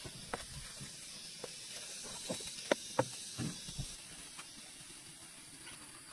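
Small plastic air pump being fitted to an air mattress's valve: a handful of light plastic clicks and taps in the first few seconds over a soft hiss.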